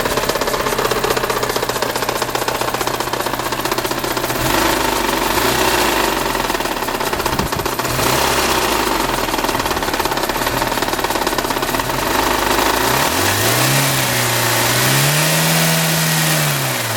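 Mitsubishi Pajero Mini's 660 cc four-cylinder engine running with a rapid, steady ticking from the top end, then revved up and down near the end. The owner first took the noise for tappets, and traced it to a slack timing belt that let the camshaft turn on its own.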